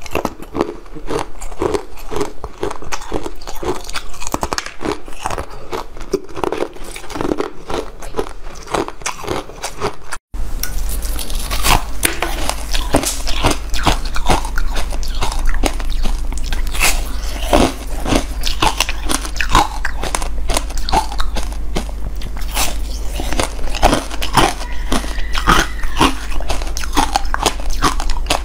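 Close-miked biting and crunching of hard coloured ice, dense irregular crunches with chewing between bites. The sound cuts out briefly about ten seconds in and then resumes with a steady low hum underneath.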